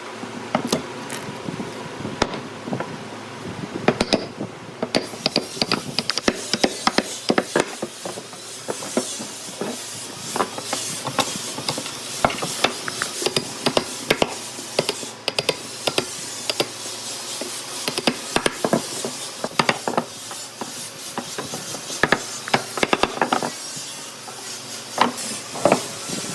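Irregular knocks and taps of hand tools striking wood, over a steady hiss that comes in about five seconds in.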